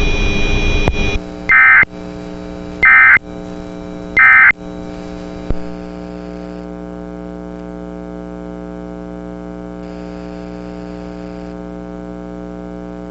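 A loud hiss for about the first second, then three short bursts of Emergency Alert System digital data tones, the warbling end-of-message code that closes the alert, about a second and a half apart. After that, a steady electrical buzzing hum.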